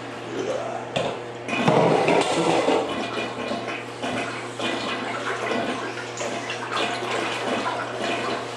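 Murky bathwater sloshing and swirling in a bathtub as it is stirred with a stick, with splashes; the sloshing is loudest about two seconds in.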